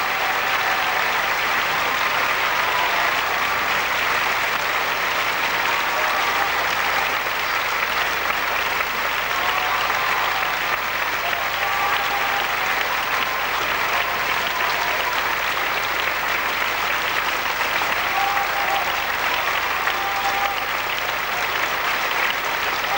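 Theatre audience applauding, a dense steady clapping with no break.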